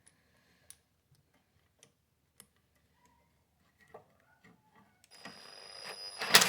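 Ratchet wrench driving in a carburetor mounting bolt: a few light clicks of tool and bolt handling, then a growing ratcheting sound from about five seconds in, with a sharp loud clack near the end.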